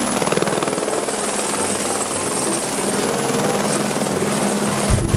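A red Airbus AS350 Écureuil light helicopter hovering, its rotor running steadily with a fast, even chop. A deeper rumble swells in just at the end.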